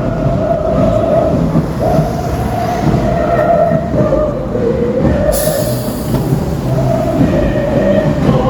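Train or subway car running, with a loud low rumble and a wavering squeal-like tone. A sudden hiss starts about five seconds in.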